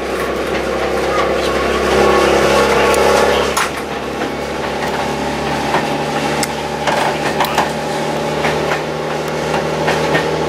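Heritage diesel train running along the line, heard from inside the carriage: a steady engine drone with many irregular clicks and rattles over it.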